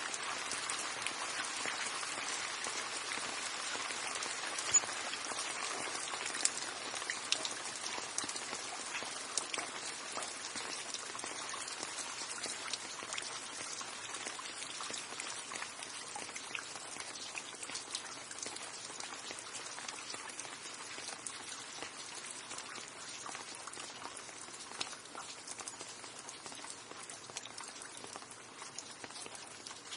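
Steady rain with many individual drops pattering close by, and a few louder single drips about five to nine seconds in. It grows slowly quieter toward the end.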